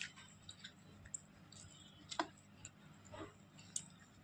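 Faint, scattered small clicks and taps from a hand tearing roti over a stainless steel plate, about half a dozen in all, the loudest a little past halfway.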